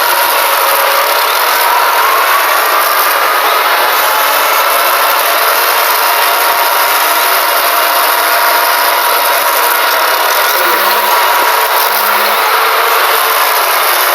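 Emergency alert alarm boosted and distorted into a harsh, steady grinding noise, with a faint steady tone running through it and two short low beeps near the end.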